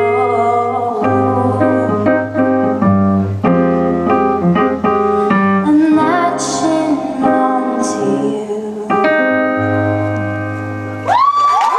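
Instrumental keyboard and piano passage over sustained bass notes, closing out a pop song. The music stops shortly before the end, and a voice cheering starts up.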